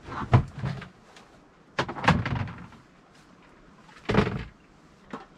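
Clunks, knocks and rattles of gear and a plastic storage bin being picked up and set down, in three bursts about two seconds apart, with a small tick near the end.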